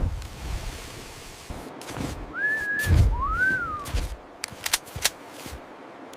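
Two short whistled notes: the first held level and high, the second rising and then falling. Scattered sharp clicks and a few dull knocks sound around them.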